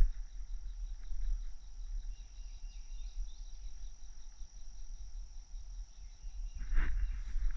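Insects in the woods giving a steady, high, thin drone with faint regular ticking, over a low rumble of wind on the microphone. A short rustle comes near the end.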